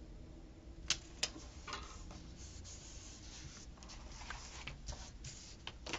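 Stickers being peeled from a sticker-book sheet and pressed onto a paper planner page: two sharp clicks about a second in, then light scratchy rubbing and rustling of paper.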